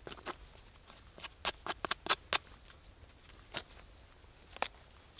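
Irregular sharp clicks and snaps: a quick cluster about a second in, then two single ones later.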